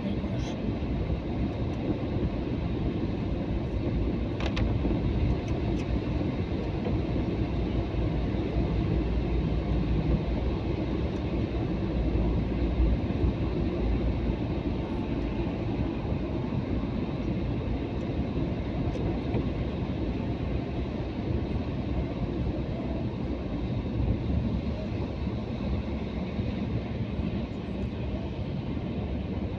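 Steady low rumble of car engine and tyre noise from a car driving along a wet, slushy city road, with a brief click about four seconds in.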